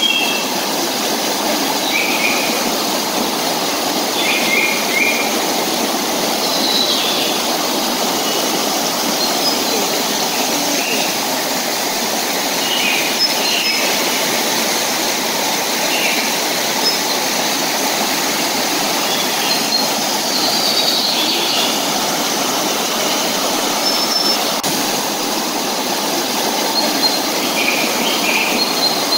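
Rushing water of a rocky river pouring over boulders and small cascades: a steady, fairly loud rush, with short high chirps now and then over it.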